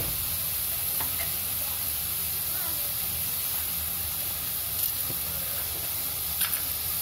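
Steady sizzle of chopped onions sautéing in oil in a kadai, with a couple of light clicks near the end.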